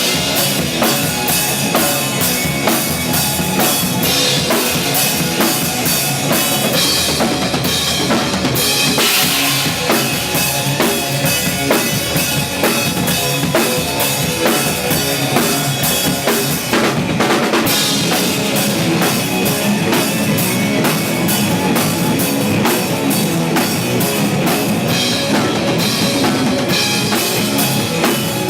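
Loud rock band music driven by a full drum kit, with kick and snare hits keeping a steady beat.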